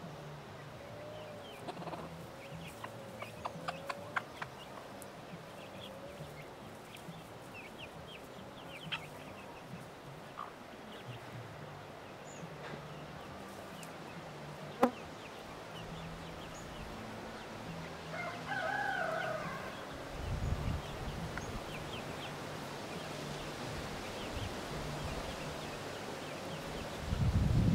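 A hen clucking softly and repeatedly while she and her young chickens forage at a dug-up anthill, with scattered small clicks and one sharp click about halfway through, and a louder chicken call a few seconds later. Low wind rumble on the microphone near the end.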